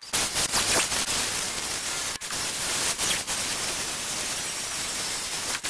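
Cordless drill spinning a wire brush against a rusty steel transmission crossmember, scouring off surface rust: a steady harsh hiss that starts suddenly, with a couple of brief breaks.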